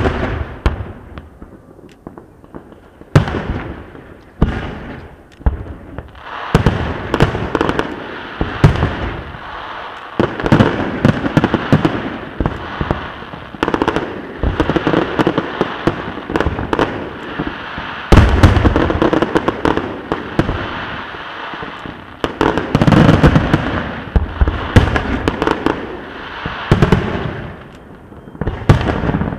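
Aerial fireworks show: shells bursting overhead with booms and crackle. A few separate bangs come in the first few seconds, then bursts follow almost without pause until near the end.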